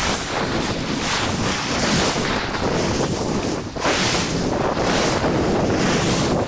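Surf breaking and washing up a sand beach, mixed with wind buffeting the microphone, a loud steady rush that swells and eases with the waves.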